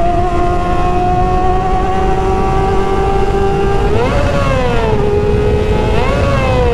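Kawasaki Ninja ZX-25R's 250 cc inline-four through an SC Project aftermarket exhaust, revved loud while riding. The engine note climbs slowly, then jumps up and falls back twice, about four and six seconds in.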